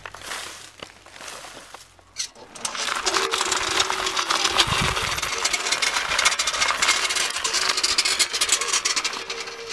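Stone roller pulled over a layer of dry reed stalks, crushing and splitting them with a loud, dense crackling that starts about two and a half seconds in.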